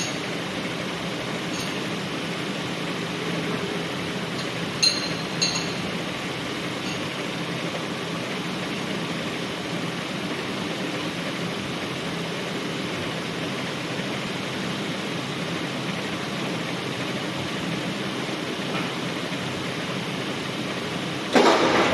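Metal lathe running with a steady mechanical hum, with two sharp metallic clicks about five seconds in and a sudden loud noisy burst near the end.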